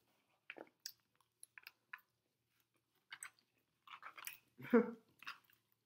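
Close-up chewing and mouth sounds of people eating: short wet smacks and clicks, sparse at first and busier near the end, where a brief voiced murmur is the loudest sound.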